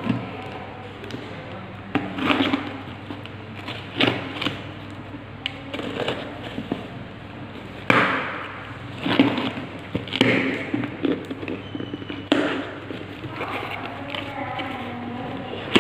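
Clear plastic wrap crinkling and tearing, and a cardboard box being handled and cut open with a utility knife: a string of sharp rustles and knocks.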